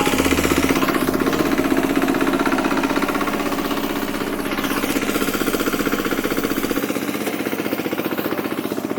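Farm machine engine running steadily under load with a fast, even knocking beat, as when ploughing a field.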